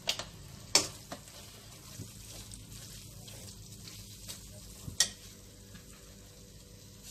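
Slotted steel spatula stirring a thick fenugreek-leaf gravy in a pan over a low sizzle of frying. Several sharp clicks of the spatula on the pan come through, the loudest about a second in and about five seconds in.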